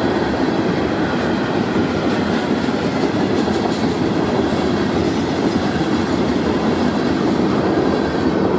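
Florida East Coast freight train's cars rolling past at speed: a steady, loud rumble of steel wheels on the rails.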